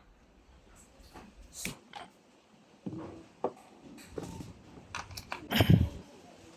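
Handling noise from audio gear being reconnected: a string of sharp clicks and knocks, the loudest near the end. A faint low hum underneath cuts off about a second and a half in.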